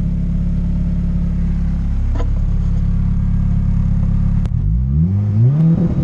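Turbocharged Honda B18 four-cylinder in an Acura Integra idling steadily, then about four and a half seconds in revving up quickly and holding against the two-step launch-control rev limiter, set at 5,000 rpm, with a choppy stutter. The anti-lag is set to 30 degrees of ignition retard.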